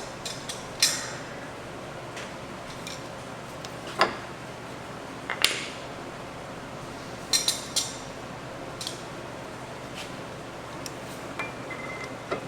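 Scattered sharp metal clinks and taps of tools and a brake pad against a brake caliper, as the caliper pistons are pushed back to make room for a new front pad. The clinks come singly, with a quick cluster of them about seven seconds in.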